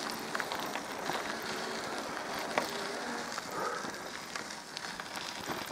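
Steady rushing noise of a bicycle in motion: tyres rolling on the road and wind across the microphone, with a few faint ticks.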